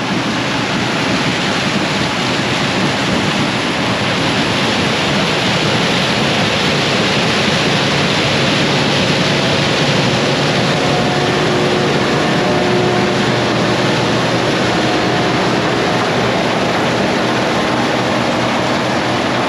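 Combine harvester working in standing corn, heard close up as a loud, steady roar of machinery and crop noise, with a faint hum that comes and goes partway through.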